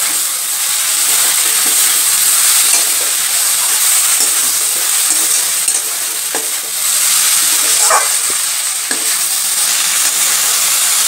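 Chopped snake gourd sizzling in oil in a metal karai while a metal spatula stirs and scrapes it, with occasional sharper scrapes and clinks against the pan, a few of them about two-thirds of the way through. The water the gourd released has nearly cooked off, so it is frying rather than simmering.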